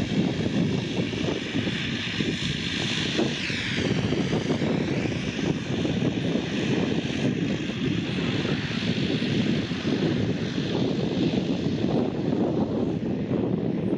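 De Havilland Canada Dash 8-300 airliner's twin turboprop engines running steadily as it moves along the runway: a low propeller drone with a high turbine whine on top. The whine dips in pitch about four seconds in.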